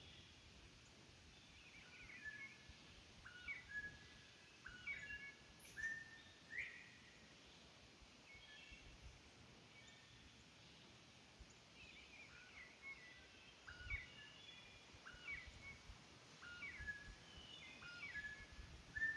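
Northern bobwhite quail calling: faint, short whistled notes with quick pitch slides, given in two bouts with a lull between.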